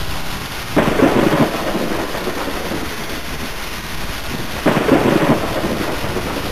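Rain falling steadily with thunder rolling twice, swelling about a second in and again later on.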